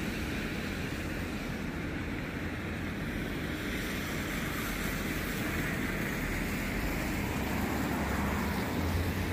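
Steady city street traffic: a low engine rumble with tyre hiss that swells in the middle as vehicles pass.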